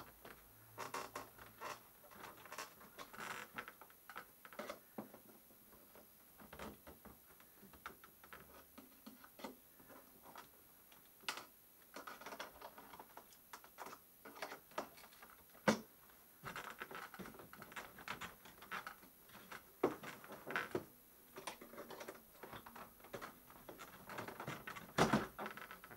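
Scattered handling noises on a plywood shipping crate: scratching, rustling and small clicks as its metal clip latches are worked to free the sides, with a few sharper knocks.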